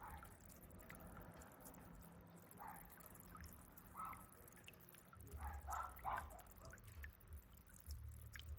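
Small solar-powered water fountain burbling faintly, with scattered drips and plops of falling water.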